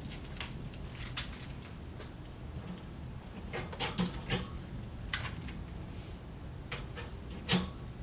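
Metal BBQ tongs clicking and tapping against the racks and tray as ribs are laid into an electric smoker: about ten scattered sharp clicks, bunched around the middle and near the end, over a steady low hum.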